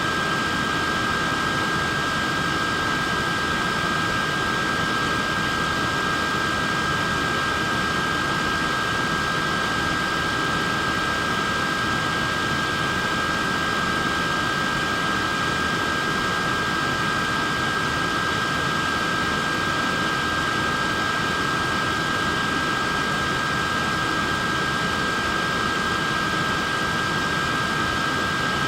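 A wearable neck fan running steadily: a constant rush of air from its small fan with a steady high-pitched motor whine.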